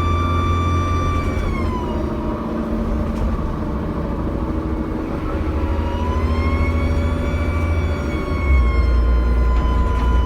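Dennis Trident bus's diesel engine and turbocharger, heard from inside the bus: a high whine over a deep engine rumble. The whine drops away about a second and a half in, rises back about halfway through and holds, and the rumble grows louder near the end.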